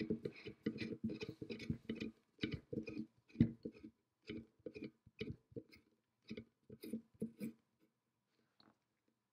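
Brass collar being turned by hand along the threads of a brass shaft: a run of short scraping clicks, each with a brief metallic ring, coming thick at first and then sparser until they stop about eight seconds in.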